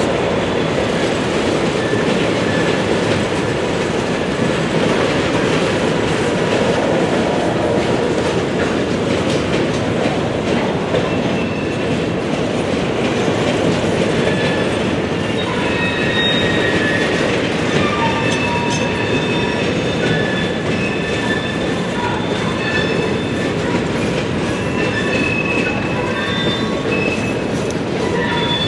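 Train rolling past at close range: a steady rumble of wheels on rail with clickety-clack at the joints. From about halfway through, short high-pitched wheel squeals come and go over the rumble.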